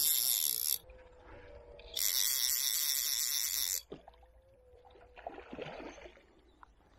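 Click-check fly reel, a Hardy Marquis, buzzing in two spells of about one and two seconds as line runs through its ratchet while a small rainbow trout is played.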